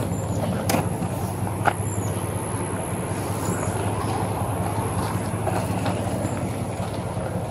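Steady low rumble of an idling vehicle engine picked up by a police body camera, with two sharp clicks about one and two seconds in.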